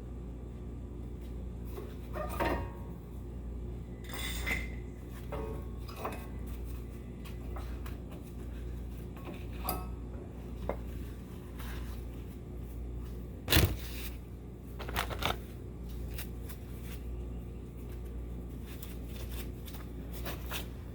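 Metal hand tools and brake parts clinking and knocking now and then during front brake caliper work, with one sharp metallic knock a little past halfway, over a steady low hum.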